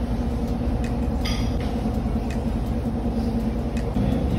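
Steady low rumble and hum of background noise, with a light click about a second in.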